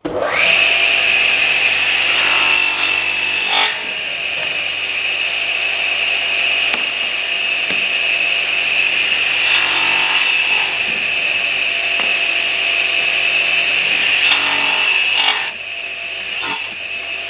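A woodworking power tool starts up at once and runs with a steady high whine. It cuts into wood three times, each cut a burst of hissing noise lasting about a second, the first a couple of seconds in, then near the middle, then about fifteen seconds in.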